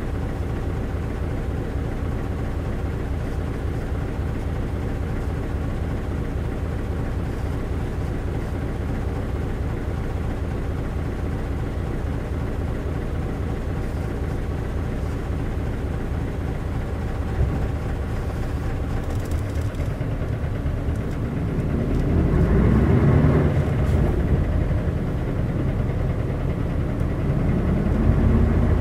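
Isuzu 8PE1-N V8 diesel engine of an Isuzu LV city bus, heard from inside the cabin, running steadily at an even pitch, then growing louder and rougher about 22 seconds in as the bus accelerates.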